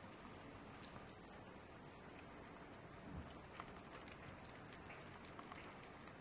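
Faint, light clicks and patter of a small chihuahua moving about on a wooden floor, coming in scattered ticks that bunch up about four and a half seconds in.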